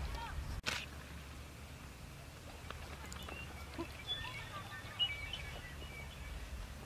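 Outdoor field ambience: small birds chirping sporadically over a steady low rumble of wind. Just over half a second in, the sound drops out briefly and a sharp click follows.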